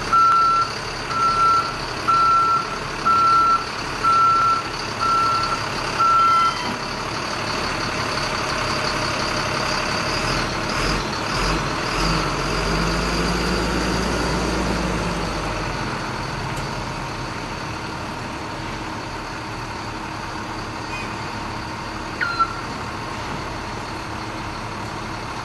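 Backup alarm of a 2004 Ford F650 truck beeping about once a second as it reverses, stopping about six seconds in. The truck's engine then rises and falls in pitch for a few seconds and settles into a steady idle.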